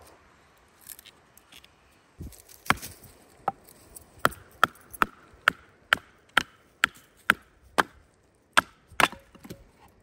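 Splitting kindling by batoning: a wooden baton knocking sharply on the spine of a fixed-blade knife driven into firewood, about a dozen strikes at roughly two a second.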